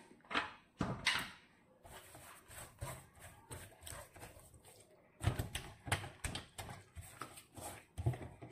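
Hands rubbing salt into whole raw fish on a wooden cutting board: an irregular run of wet rubs, pats and light knocks, busiest in the second half.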